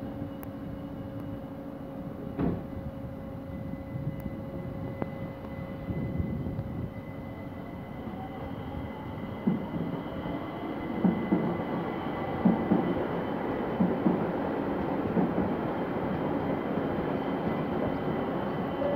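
ÖBB Talent electric multiple unit pulling out of the station: a steady electric whine that rises in pitch as it speeds up, getting louder, with a run of wheel knocks over rail joints and points in the middle.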